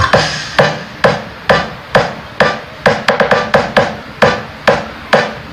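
Music played loud through a dB Audio AV-802BT amplifier driving four 15-inch speakers. The passage is percussion-led, with sharp hits a little more than twice a second. The heavy bass drops out at the start.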